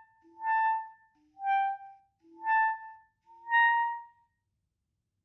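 Clarinet playing four short articulated notes in the upper register, about one a second. Each attack has a brief low subtone sounding beneath the upper note. This is the unwanted subtone that often creeps in when tonguing notes in the upper register.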